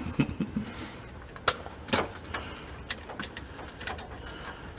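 Wire connectors being pushed onto a refrigerator fan motor's terminals: a few sharp clicks and small handling knocks, the clearest just at the start and about one and a half and two seconds in, with brief low squeaks at the start over a faint steady low hum.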